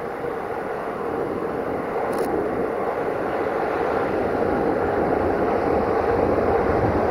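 A Romanian class 40 electric locomotive hauling a passenger train into a station, a steady rumble of wheels and running gear that grows gradually louder as it comes closer.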